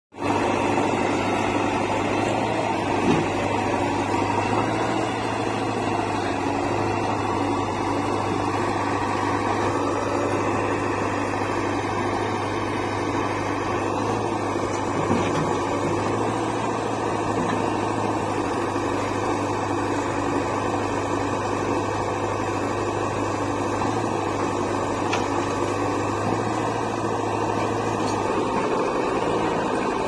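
Diesel engines of a JCB 3DX backhoe loader and a Mahindra 475 DI tractor running steadily at idle, an even mechanical drone.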